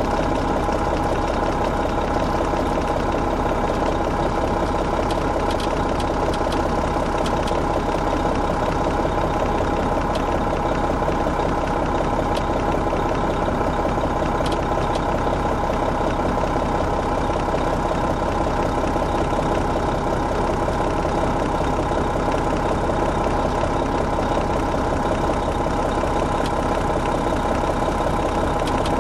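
Detroit Diesel Series 60 diesel engine of an MCI D4500 coach running steadily, its pitch and level unchanging, with a steady whine over the engine noise.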